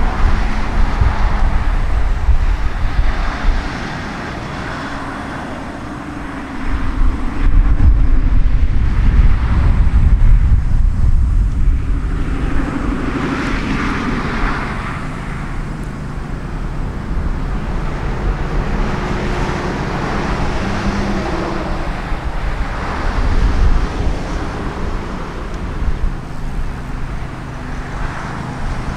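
Diesel locomotive running, with its engine note shifting slightly over about half a minute and wind buffeting the microphone. The sound drops quieter about four seconds in and comes back louder about seven seconds in.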